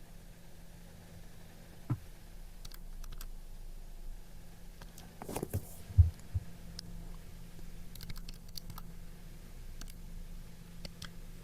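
Scattered key clicks, a few at a time, as a calculation is keyed in, with one louder low thump about six seconds in, over a faint steady hum.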